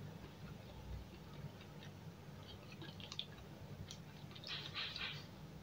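Quiet eating sounds: a person chewing a mouthful of rice and side dishes, with small wet mouth clicks and a short crackly rustle about four and a half seconds in.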